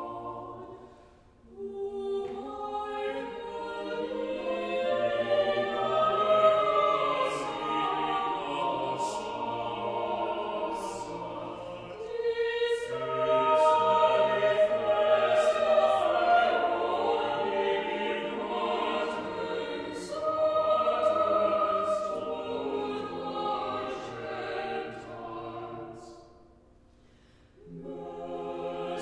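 Small mixed choir of men's and women's voices singing in parts. The sound dips to near silence between phrases about a second in and again near the end.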